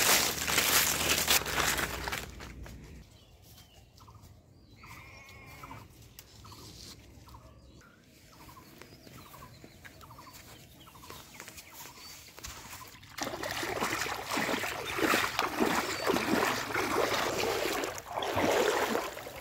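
Footsteps crunching through dry fallen leaves, then a quieter stretch in which a chicken clucks repeatedly, then legs wading and splashing through shallow water for the last third.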